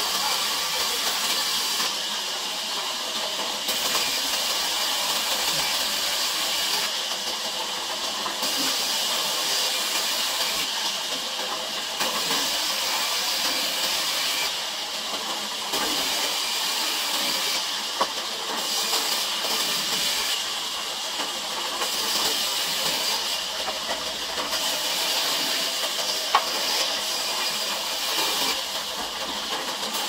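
Large band sawmill running, its blade ripping a wooden plank with a steady hiss; the high cutting noise swells and eases every few seconds as the board is fed through. Two short sharp knocks come in the second half.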